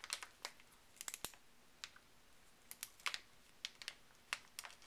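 Plastic snack bag crackling under a ballpoint pen as it draws on the bag: quiet, irregular clicks and crackles.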